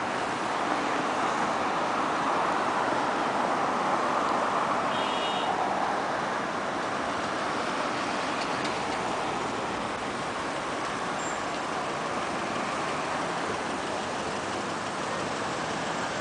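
Steady road-traffic noise from cars driving past on a busy street, a continuous even hiss and rumble.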